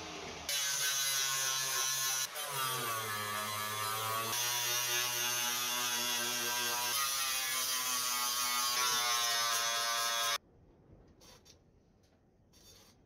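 Electric angle grinder with a flap disc grinding the welded edges of a sheet-steel box: a steady high motor whine with a grinding hiss, its pitch dipping briefly about two seconds in as the disc bites. It cuts off abruptly about ten seconds in, leaving only faint clicks.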